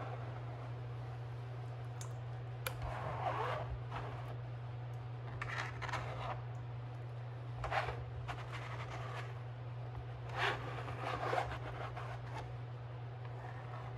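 Bowl scraper drawn across the mesh of a fine tammy sieve, scraping garlic paste off it in several separate strokes, over a steady low hum.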